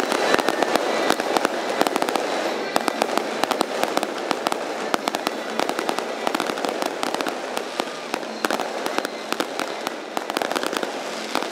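Fireworks going off in a dense, rapid run of sharp crackling pops, many overlapping each second, easing off a little near the end.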